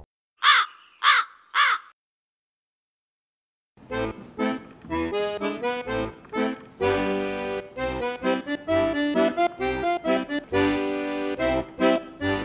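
Three short, sharp calls in quick succession, each sweeping up and back down in pitch, then about two seconds of silence. Then background music with a steady beat.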